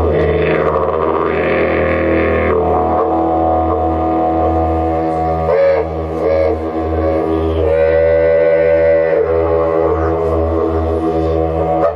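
Two didgeridoos played together: an unbroken low drone with a rhythmic pulse in the bass and shifting overtones above it, with a few short accented calls about halfway through.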